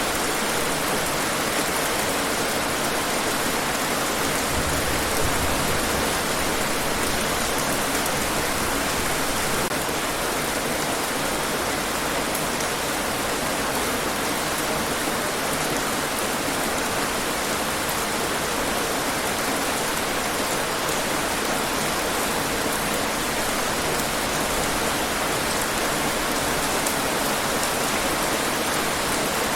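Steady, heavy rain falling, an even hiss of many drops on hard surfaces.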